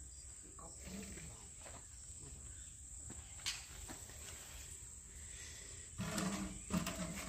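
Insects trilling in a steady high drone. There are faint voices near the end and a single click about halfway through.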